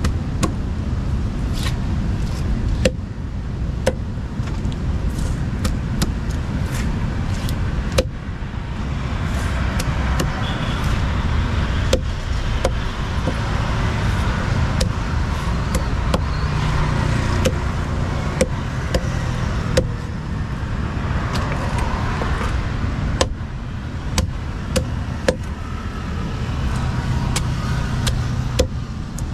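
A long fish-cutting knife chops through fish onto a wooden block, giving irregular sharp knocks, over a steady low rumble of vehicle traffic.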